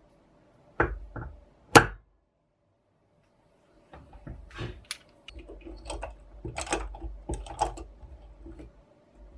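Sharp metallic clicks and knocks of a brass hand-lever bottle corker being worked on a glass bottle: three strikes in the first two seconds, the last the loudest. After a short silence comes a busy run of small clicks and rattles as metal tools are handled on the bottle.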